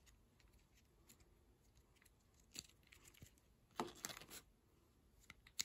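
Mostly near silence, with a few faint clacks of a GAN 356 Air 3x3 speed cube's plastic layers being turned, bunched in a short flurry about four seconds in.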